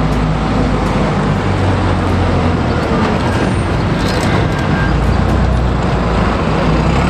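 Bus engine running steadily amid road traffic noise.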